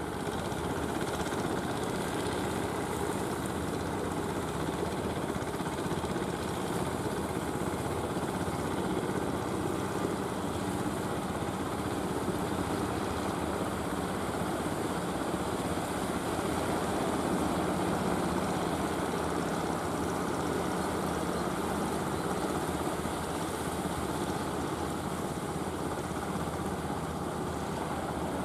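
Motorised wooden fishing boat's engine running steadily under way, with the rush of its bow wave.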